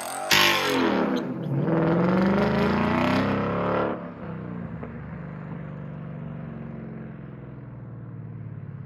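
Car V8 engine, likely the 2016 Mustang GT's 5.0, revving up and down for the first few seconds, then dropping to a quieter, steady low run.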